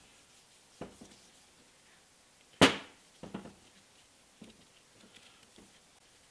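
Handling knocks as a blued steel jointer cutterhead is turned and wiped with a rag on a metal bench: a few light knocks and one sharp clack about two and a half seconds in.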